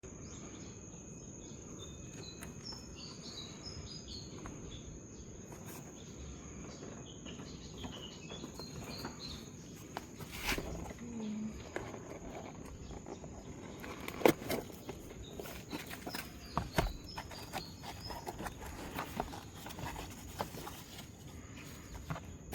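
Outdoor ambience: a steady high-pitched insect drone, birds chirping in short falling notes, and a few sharp knocks, the loudest about fourteen seconds in.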